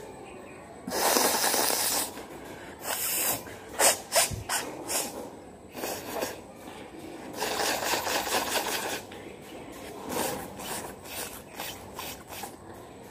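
A person blowing her nose hard, repeatedly: a long blast, a quick run of short ones, then more long and short blasts.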